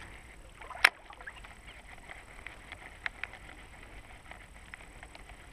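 Baitcasting rod and reel being worked while retrieving a topwater lure: one sharp click about a second in, then faint, scattered ticks.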